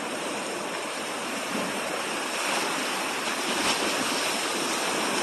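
Sea waves surging onto a beach: a steady rush of surf that swells a little louder about halfway through.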